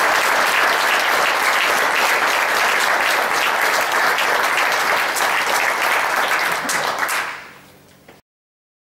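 Small seated audience applauding with steady, dense hand clapping that dies away about seven seconds in.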